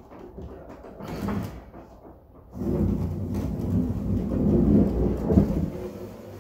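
Heavy wooden slab scraping over the boards and floor beneath it as it is levered up on end: a low rumbling scrape that swells about two and a half seconds in, with a knock near the five-second mark, then fades near the end.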